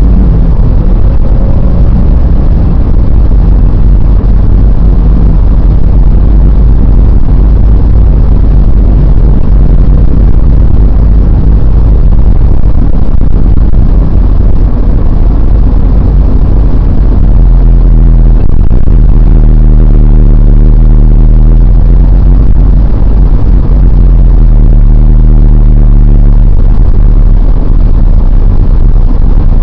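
Car engine and road noise heard from inside the cabin: a very loud low drone with a steady engine hum whose pitch shifts about two-thirds of the way through as the car changes speed.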